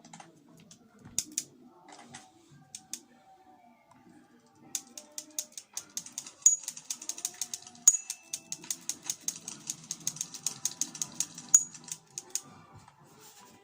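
Rapid sharp mechanical clicking: a few scattered clicks at first, then a dense run of several clicks a second from about five seconds in, with a few louder strikes among them, stopping near the end. Faint music plays underneath.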